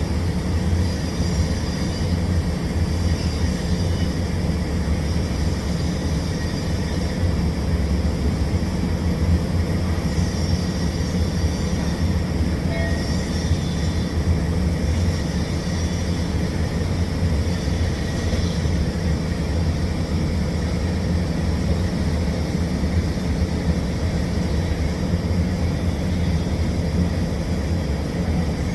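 TIG welding setup running with a steady low hum and rumble during a pipe root pass.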